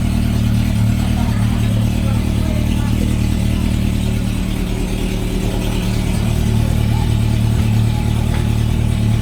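Honda CB400 Super Four VTEC III's inline-four engine idling steadily through a titanium aftermarket exhaust.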